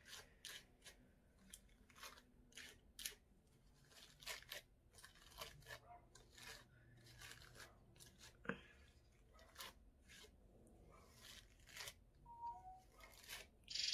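A detangling brush stroked through hair, a string of faint scratchy swishes about two a second, with one sharper click about eight and a half seconds in.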